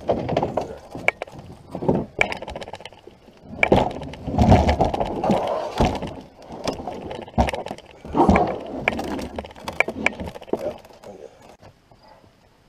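Firewood logs being dropped and stacked into a canoe: a run of irregular thuds and knocks of wood against wood and against the boat's hull, loudest about four to six seconds in and again around eight seconds, dying away near the end.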